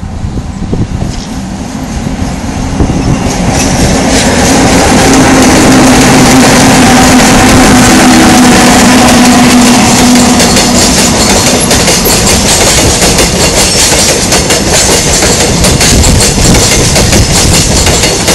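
Freight train of cement tank wagons passing close by, growing louder over the first few seconds. A steady low hum comes as the locomotives go by, then the wagons' wheels clatter on the rails.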